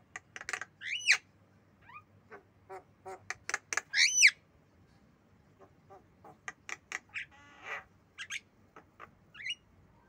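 Javan myna calling: a quick run of harsh squawks and clicks mixed with loud whistled notes that sweep in pitch, the loudest about four seconds in, and a short buzzy rattle near the eight-second mark.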